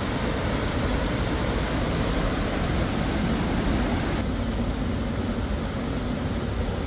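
Steady rushing of fast-flowing water, an even roar with no rhythm, turning a little duller from about four seconds in.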